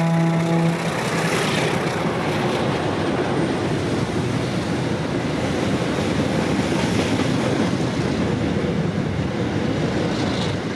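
Air horn of a pair of D-18000 diesel locomotives cutting off about a second in, followed by the steady rumble of the freight train rolling past, mixed with the hiss of heavy rain.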